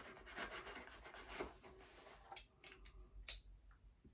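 A mail package being opened by hand, with packaging rubbing and rustling, then a few short, sharper scrapes and ticks in the second half.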